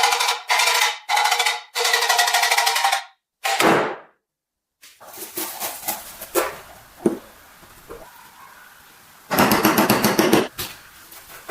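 A small power tool run in short loud bursts, each a steady buzz with a fast rattle. The pitch falls away once as the motor winds down. Small clicks and knocks follow, then another rattling burst near the end.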